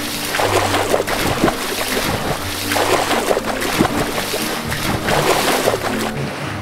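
Splashing, rushing water sound effect, continuous and churning, for a mermaid's tail diving under the surface.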